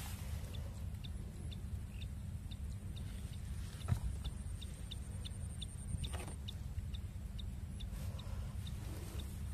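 Outdoor ambience by the water: a steady low rumble, with faint short high chirps repeating about three times a second and a single sharp knock about four seconds in.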